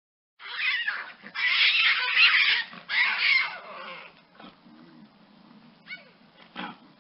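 Lynx calling: three loud, harsh calls in quick succession, then two short, quieter calls near the end.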